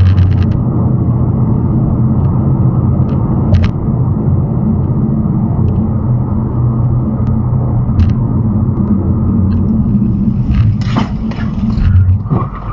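Steady road and engine rumble inside a car cruising at highway speed, picked up by the dashcam, with a few faint clicks. Near the end there are several sharper knocks as the car slows.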